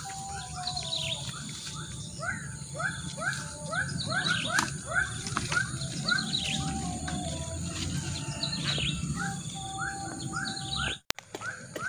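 Birds calling: a long run of short repeated chirps, about three a second, with a thin held whistle coming and going beneath them.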